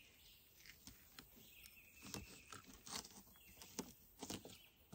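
Near silence with faint, scattered taps and scrapes of a knife on a cutting board as a piece of fish is sliced for bait.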